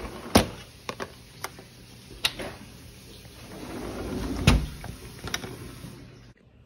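Sliding patio door being slid and latched by hand: a series of sharp clicks and knocks, the loudest about half a second in. A rolling rumble of the door along its track ends in a knock and thud about four and a half seconds in.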